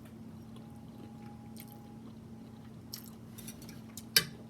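Soft chewing of food with a few small wet mouth clicks, one sharper click about four seconds in, over a faint steady hum.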